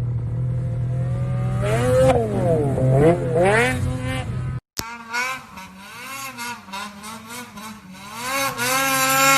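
Snowmobile engines revving, the pitch climbing and dropping several times. About halfway through the sound cuts to another sled, quieter at first, that revs up louder near the end.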